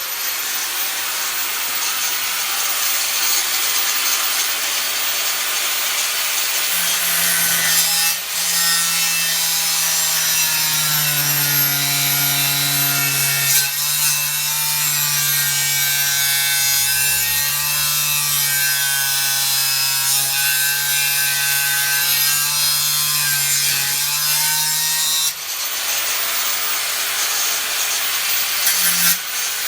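Stayer baby angle grinder with a 3 mm Karbosan cutting disc cutting through hardened 52100 high-carbon steel: a continuous loud hiss of the disc grinding through the metal. From about 7 s to 25 s a whine from the grinder rises over it and wavers in pitch as the cut goes on.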